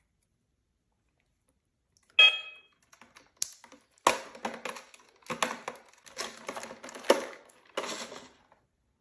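Hands handling small plastic parts: silence, then a sharp click with a brief ring about two seconds in, followed by a run of irregular clicks and rustles.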